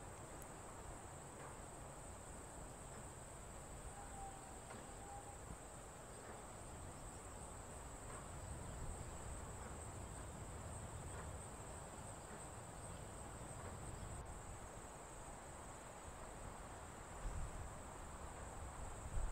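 Steady, high-pitched drone of insects, with a faint low rumble beneath.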